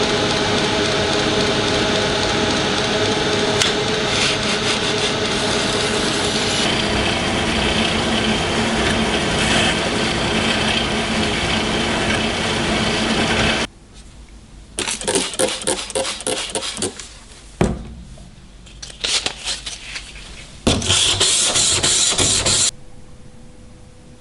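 Power tool running steadily, cut off suddenly about halfway through; short irregular bursts of the same kind of noise and a sharp click follow, then a loud two-second run near the end.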